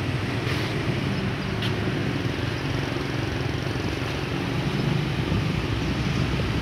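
Steady low rumbling background noise, even in level throughout, with no distinct events.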